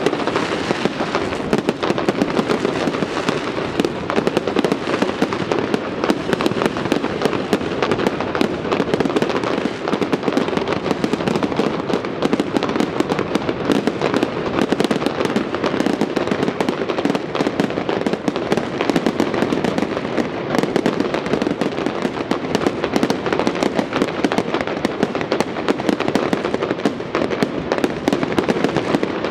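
Fireworks display going off in a dense, unbroken stream of many bangs and crackles a second, with no pause.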